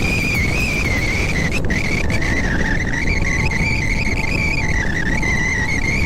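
Heavy machinery running with a steady deep rumble, over which a continuous high, slightly wavering squeal of metal or hydraulics keeps sounding.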